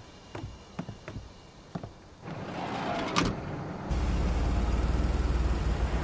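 Footsteps climbing a coach bus's steps, then the bus door shuts with a sharp thunk about three seconds in. The coach's engine then runs with a steady low rumble that grows louder toward the end.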